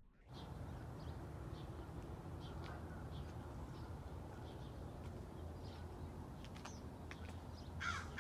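Outdoor park ambience: small birds chirping here and there over a steady low rumble, then a crow cawing near the end.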